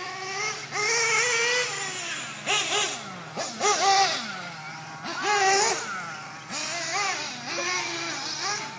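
Several nitro RC off-road cars racing, their small engines whining up to high revs and dropping in pitch each time the throttle is let off, over and over.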